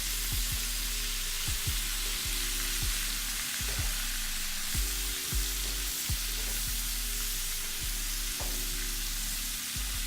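Cabbage frying in bacon fat in a pan, a steady, moderate sizzle that has eased as the cabbage starts to release its water. A beat-based music track with a repeating bass line plays underneath.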